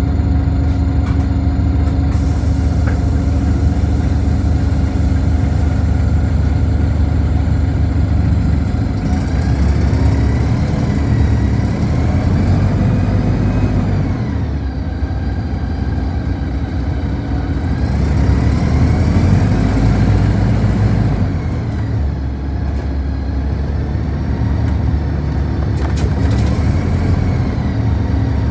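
City bus engine heard from inside the cabin: idling at first, with a hiss of air a couple of seconds in, then pulling away, its pitch rising and dropping twice as it gathers speed through the gears.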